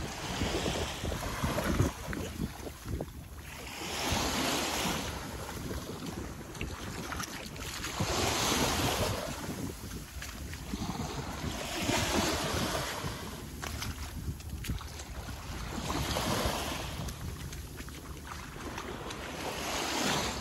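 Small waves washing up onto a sandy beach, each swell of surf rising and falling back about every four seconds.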